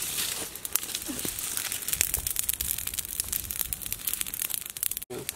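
Small fire of dry leaves and twigs crackling, with a dense, irregular run of sharp snaps.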